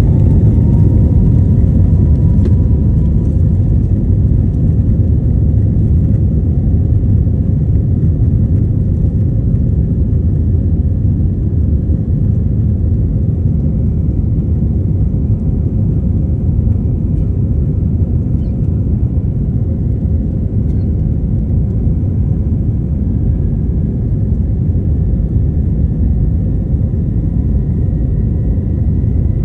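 Cabin noise of an Airbus A321LR neo: a loud, steady low rumble of engines and airflow, with faint steady engine tones above it.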